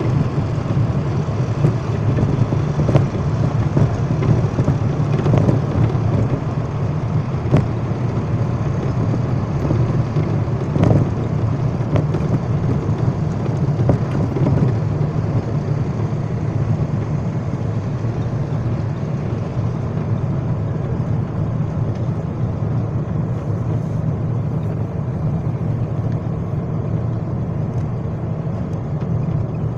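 Steady low engine and road rumble heard from inside a moving vehicle, with a few brief knocks in the first half.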